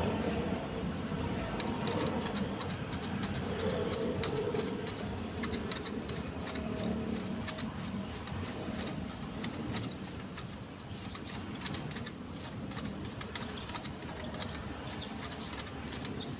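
Hand shears snipping through the small leaves and twigs of a Fukien tea hedge: rapid, irregular clicks of the blades, several a second, beginning about a second and a half in.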